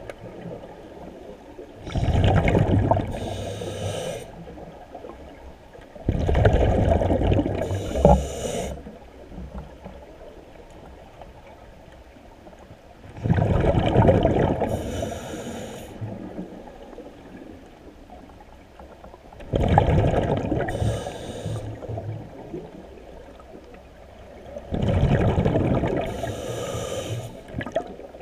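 Scuba diver breathing through a regulator underwater: five breaths a few seconds apart, each a loud gush of exhaled bubbles with a hiss from the regulator, and a low wash of water noise between them.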